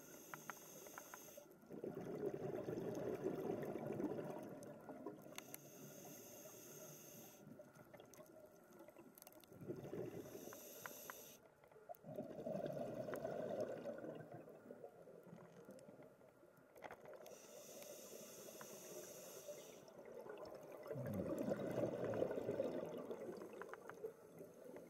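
Scuba diver breathing through a regulator underwater. A faint hiss on each inhale alternates with louder rumbling bursts of exhaled bubbles, over several breaths.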